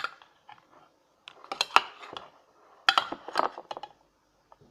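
A utensil clinking and scraping against a bowl while stirring thick slime, in three quick clusters of clicks.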